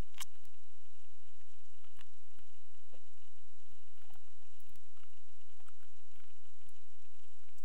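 Clock radio giving a steady electrical hum and hiss, with scattered crackles and clicks; the strongest click comes just after the start.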